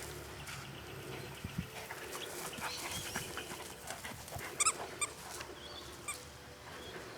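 A dog giving a few short, high whimpers, the loudest about four and a half seconds in and fainter ones shortly after.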